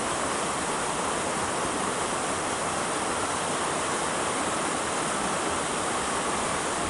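Steady rushing water, a continuous even hiss with no breaks, as of a river's current.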